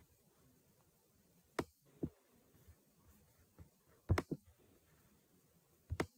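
About five short, sharp clicks or taps at uneven intervals, two of them close together a little past the middle, against quiet room tone.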